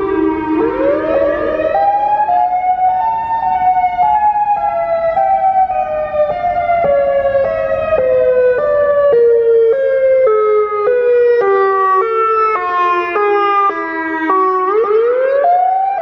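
Federal Signal EOWS 612 electronic warning siren, its rotating array of six horn speakers sounding a loud rise-and-fall tone. The pitch sweeps up over about a second, slides down slowly in small steps for about twelve seconds, then sweeps up again near the end.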